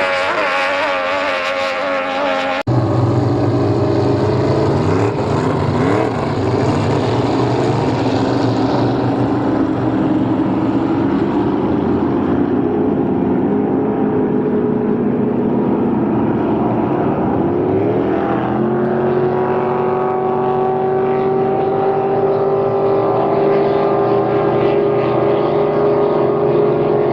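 Racing powerboat engines running: a steady, loud drone whose pitch glides up and down a few times, then rises and holds steady for the last part. The sound changes abruptly about three seconds in.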